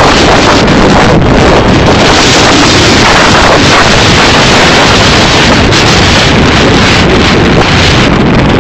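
Loud, steady wind blowing across the microphone, a dense rumble and hiss that fills the recording.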